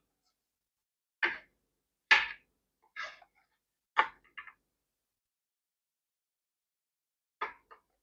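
Short knocks and clicks of plastic trimmer parts and fuel line being handled, five of them spread out, the loudest a little over two seconds in.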